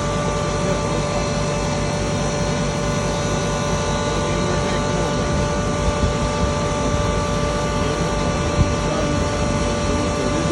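A 3 HP single-phase double-chamber turmeric grinder running steadily under load, grinding: a dense rattling drone with a steady whine over it, and a few small knocks in the second half.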